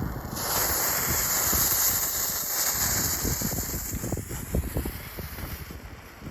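A small 'poopy puppy' novelty firework burning with a loud hiss that starts about half a second in, with scattered crackles in the middle, fading toward the end.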